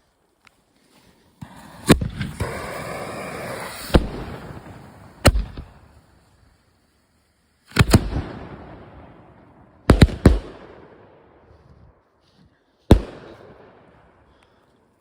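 Fireworks going off: a run of about seven sharp bangs, some in quick pairs, each trailing off into an echoing rumble, with a loud hiss for a couple of seconds early on between the first bangs.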